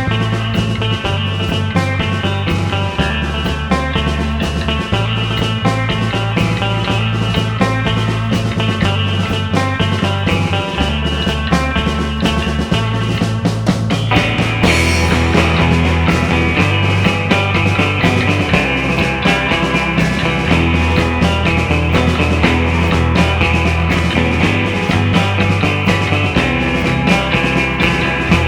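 A rock band playing live: a bass line stepping between notes under steady drums and electric guitar. About halfway through, the sound fills out and gets brighter.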